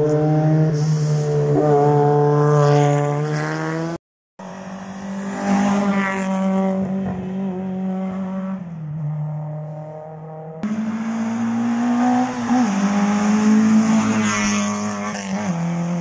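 Historic rally cars at full throttle on a tarmac special stage, engines revving hard and climbing in pitch, then dropping back at gear changes and lifts. The sound breaks off abruptly twice as a new car's run begins.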